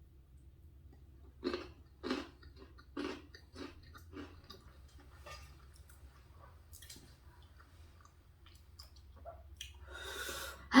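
Close-up chewing of a mouthful of food, a run of separate wet chews and mouth sounds, the strongest about one and a half to three seconds in.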